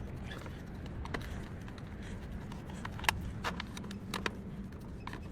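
Scattered small clicks and taps of parts being handled while the keypad board of a building intercom panel is being changed, over a low steady hum; the sharpest click comes about three seconds in.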